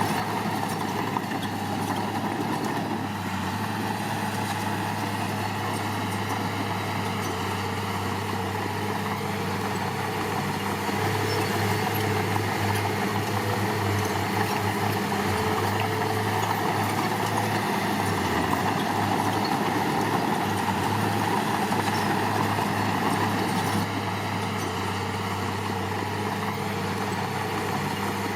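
Diesel engine of construction machinery running steadily with a low, even hum, a little quieter near the end.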